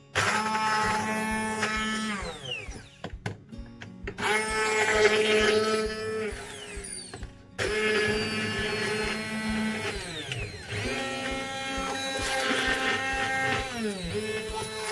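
Hand-held immersion blender puréeing strawberries in a tall plastic jug. Its motor runs in several bursts, the whine falling in pitch each time it is let off before starting again.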